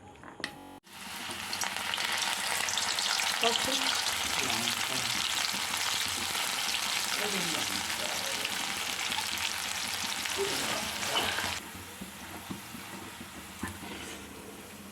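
Seasoned corn kernels frying in hot oil: a loud, dense crackling sizzle that settles to a quieter fizz about eleven seconds in.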